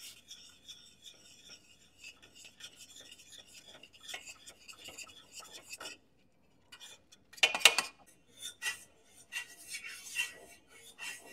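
A Danish dough whisk stirring flour into boiled butter and water in a stainless steel saucepan, beating it into thick choux paste. It makes a soft, irregular rasping and scraping, and in the second half louder scrapes and knocks of the wire against the pan.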